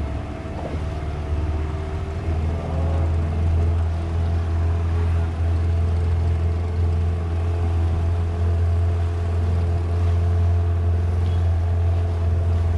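Engine of a small wooden boat running steadily under way, a constant low drone with faint steady tones above it.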